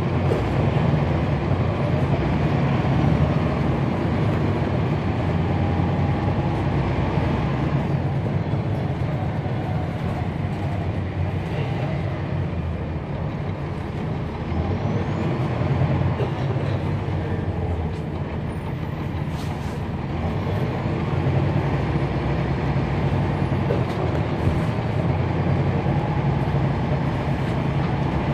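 The Cummins ISL9 diesel of a NABI 40-SFW transit bus with a ZF Ecolife automatic transmission, heard from inside the bus while it runs. The low engine drone swells and eases several times.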